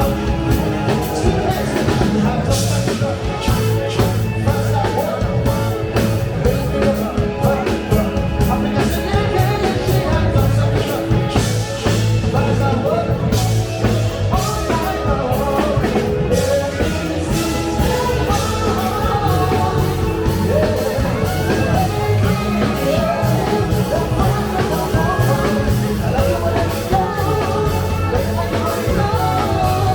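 Live funk and soul show band playing, with a singer over a steady drumbeat and bass.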